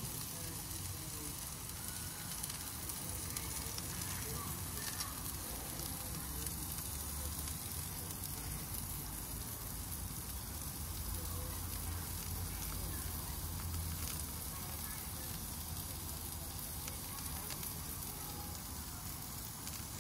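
Tomahawk steak sizzling steadily as it cooks over high heat.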